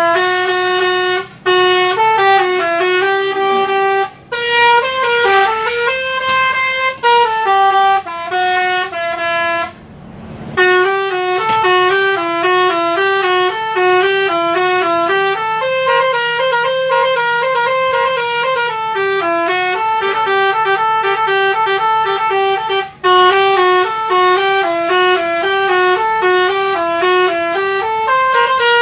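Basuri telolet horn playing a melody: a single line of held notes stepping up and down, with brief breaks between phrases, the longest about ten seconds in.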